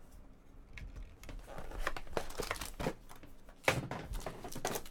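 Trading card pack wrappers crinkling and tearing as packs are opened and handled, in irregular sharp rustles, the loudest one a little before the end.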